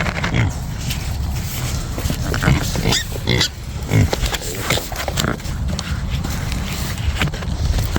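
Pigs grunting repeatedly at irregular intervals.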